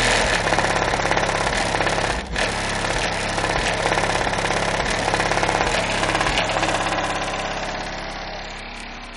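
Car audio subwoofers, a pair of AQ HDC3 15-inch woofers on an AQ 3500D amplifier, playing loud deep bass notes that change in a steady rhythm, heard from outside the vehicle with a harsh buzz over the bass. The level falls away over the last couple of seconds.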